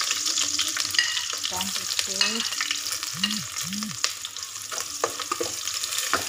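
Sliced onions sizzling as they fry in hot oil in an aluminium pot, with a few clicks of a metal ladle stirring against the pot.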